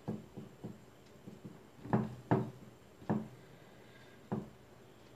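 A handful of soft, dull knocks, about six in all with the loudest pair about two seconds in, as hands fold and press a filled dough parcel down on a round wooden board.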